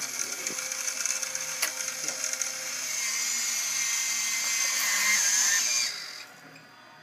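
Small electric gear motors of radio-controlled Bruder toy machines running with a high-pitched whine and a few clicks. The whine grows louder about three seconds in, shifts in pitch, then cuts off about six seconds in.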